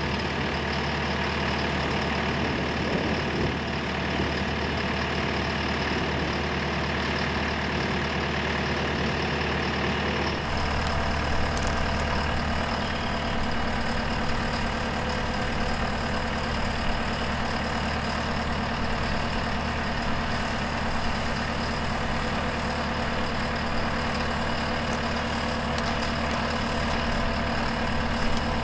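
JCB Teleskid compact track loader's diesel engine running steadily while its telescopic boom raises a framed wall.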